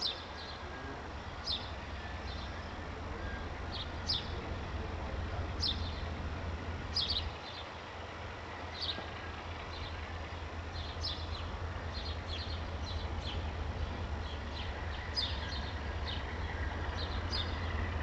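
Small birds chirping in short, high calls every second or so, over a steady low rumble from an approaching locomotive that grows a little louder near the end.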